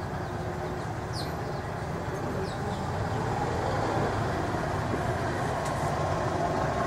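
Steady outdoor background noise, an even rumble like distant traffic, with a few faint, short, high chirps.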